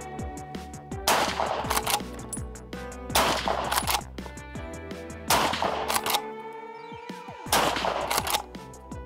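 Background music over loud rifle shots from a Beretta BRX-1 straight-pull .30-06 rifle fired in quick succession. Loud sharp bangs come in pairs about every two seconds.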